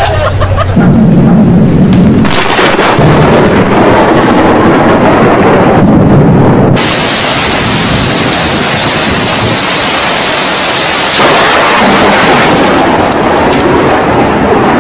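Loud thunder rumbling with rain, the sound shifting abruptly several times, about a second in, around two seconds, near seven seconds and near eleven seconds.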